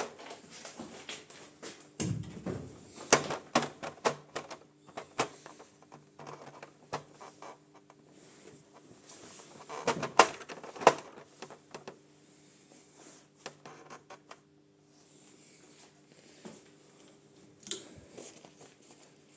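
Irregular clicks, knocks and rattles of objects being handled in a workshop, in scattered clusters, over a faint steady hum.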